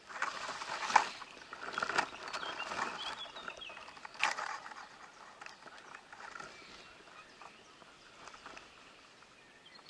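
Leaves, twigs and camouflage rustling and crackling against dense ivy and undergrowth as the hidden player shifts position, with a few sharp clicks about one, two and four seconds in. It dies down to a faint hiss in the second half.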